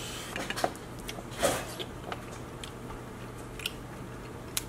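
Scattered small clicks and crackles of king crab shell being handled and snipped with kitchen shears, with a brief louder rustle about a second and a half in, over a low steady hum.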